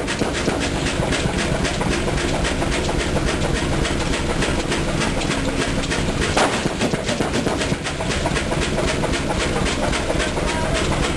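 1924 Chicago Pneumatic 50 hp horizontal diesel engine running at a steady speed, with an even, rapid rhythmic clatter.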